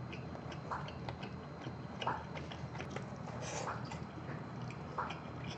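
Close-miked chewing of a mouthful of spicy braised monkfish and rice: soft, wet mouth sounds with small clicks and a smack about every second and a half.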